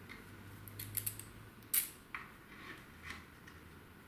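Small metallic clicks and taps as an M5 bolt and wing nut are handled and fitted through a drilled oak handle, the sharpest click a little under two seconds in. A faint low hum sits underneath and fades about a second and a half in.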